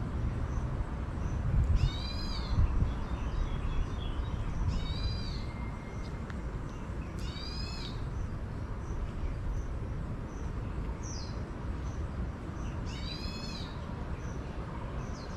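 A bird calling outdoors: a short call of several arching notes, repeated every two to three seconds with a longer gap in the middle, over a steady low rumble.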